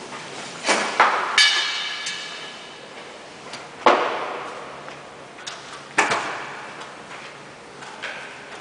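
Construction work: about five sharp bangs and clanks at irregular intervals, each echoing in a large atrium. One bang about a second and a half in rings with a metallic tone.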